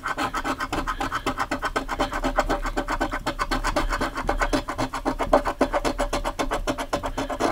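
Coin scraping the latex coating off a paper scratch-off lottery ticket on a wooden table, in rapid back-and-forth strokes of about ten a second.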